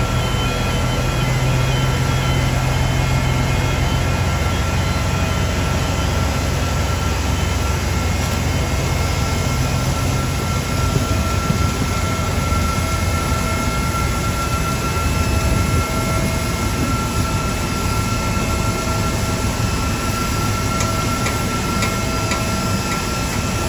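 Steady airport ramp machinery noise: a continuous high whine over a low engine rumble that drops away about halfway through.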